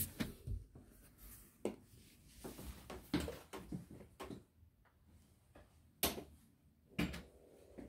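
Scattered handling noise: clicks, light knocks and rustles of a handheld camera being moved about, with two sharper knocks near the end.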